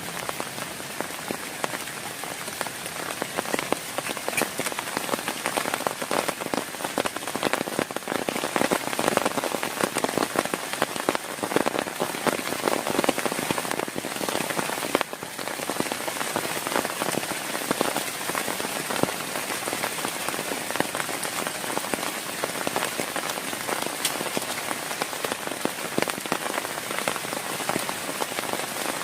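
Heavy rain falling steadily, a dense patter of drops striking a surface.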